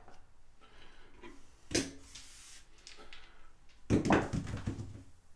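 Dice and casino chips being handled on a felt craps table: a single sharp click about two seconds in, then a quick clatter of hard clicks a little before four seconds in, lasting about a second.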